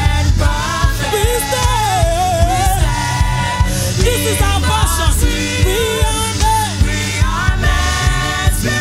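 Gospel worship music: a sung melody over keyboard-led band accompaniment with heavy bass and a steady beat.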